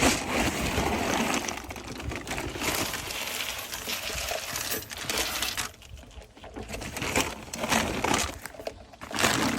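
Dry animal feed being poured from a feed bag into a feeder: a steady rush of pellets that eases off about six seconds in, with a few brief spills after.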